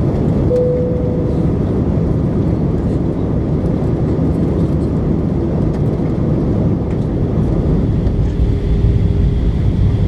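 Steady cabin noise inside an Airbus A319 airliner in flight: the even rumble of engines and airflow heard from a window seat. A short steady tone sounds about half a second in, and a fainter one joins near the end.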